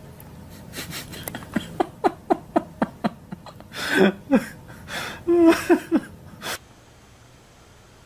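A run of short laughs, each falling in pitch, about three or four a second, with a couple of louder breathy bursts partway through. It stops over a second before the end.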